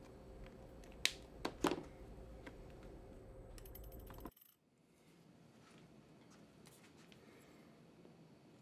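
A small metal disc lifted off felt and set down on a cutting mat: two light clinks about a second in, over faint room hum that cuts off abruptly after about four seconds.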